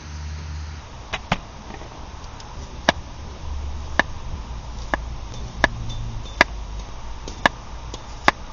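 A series of sharp chopping knocks, unevenly spaced at about one a second, over a low steady background hum.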